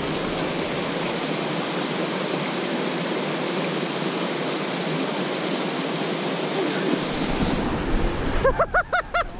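Small waterfall pouring into a plunge pool, a steady rushing of water. Near the end the camera is jostled, with wind rumble on the microphone and a quick run of short pitched sounds.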